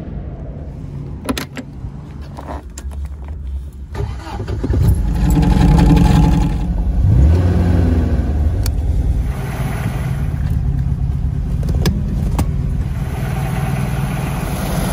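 Car engine starting after a few clicks and rattles, revving with a rising pitch, then running steadily.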